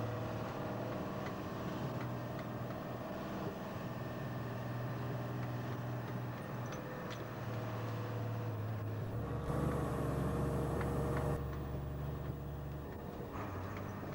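Diesel engine of a milk tanker lorry running on the move, heard from inside the cab, its note shifting in steps a few times. About two-thirds of the way through, a deeper, louder rumble comes in for a few seconds, with a hiss over part of it.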